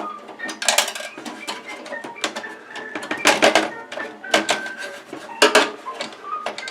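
Metal computer case parts and hardware clinking and clattering as they are handled and pulled out during disassembly, in short irregular clanks, over light background music with short plucked or mallet-like notes.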